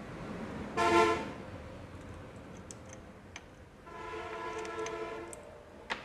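A vehicle horn honks twice: a short, loud toot about a second in, then a longer, quieter honk around four to five seconds in. A few light metallic clicks come in between.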